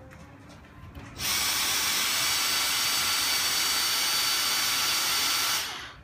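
Dyson cordless stick vacuum switching on suddenly about a second in and running with a steady high-pitched motor whine, then winding down just before the end.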